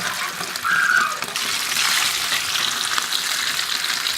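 Rice-stuffed lamb mumbar (sausage casings) frying in hot oil: a steady sizzling hiss with a brief louder moment just under a second in, swelling louder about a second and a half in.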